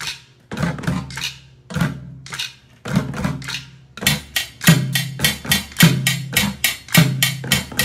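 A group bucket drumming: drumsticks striking upturned plastic buckets in a rhythmic pattern, each hit a sharp stick crack over a low hollow boom. About four seconds in the pattern turns faster and busier, about four hits a second.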